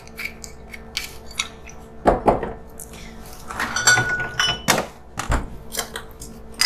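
Bar tools and glassware handled on a counter: light clicks and knocks, two dull thuds as things are set down, and one short ringing metal-or-glass clink near the middle.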